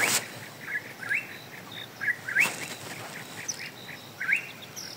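Small birds chirping in quick short rising notes, with a thin high note now and then. A brief rustle or knock comes just after the start and another, the loudest sound, about two and a half seconds in.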